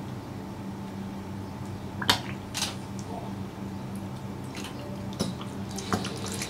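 Plastic squeeze bottle of dressing squeezed over a bowl of noodles, giving a few short squishy squirts and clicks, over a steady low room hum.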